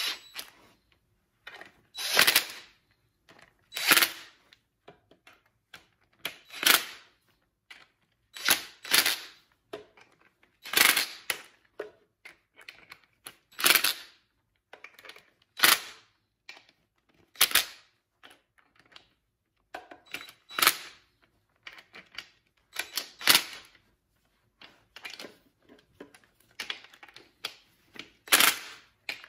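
DeWalt cordless impact driver hammering in short bursts, about a dozen of them, running down the front pump bolts of a Mopar 904 transmission one after another in a crisscross pattern so the pump draws down evenly into the case.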